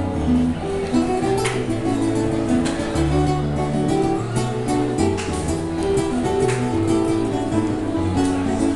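Live music from an acoustic guitar, strummed and plucked, with keyboard accompaniment and held bass notes.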